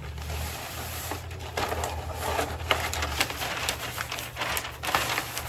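A roll of wrapping paper being handled, the paper rustling and crinkling with many irregular crackles and taps.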